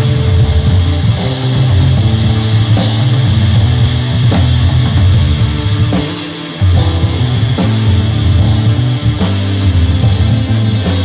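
Rock band jamming an instrumental in a heavy rock style: loud, bass-heavy instruments over a drum kit. About six seconds in the low end drops out for half a second before the band comes back in together.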